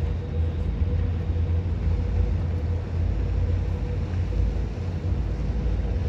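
Steady low rumble aboard a cruise ship under way, with a faint steady hum held on one note.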